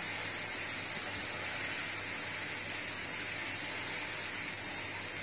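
Steady, even hiss of coconut milk heating in a wok over a lit gas burner as it is brought to a boil.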